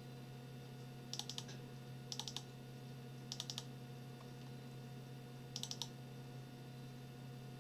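Computer keyboard keystrokes in four short bursts of three or four quick taps each, over a steady low hum.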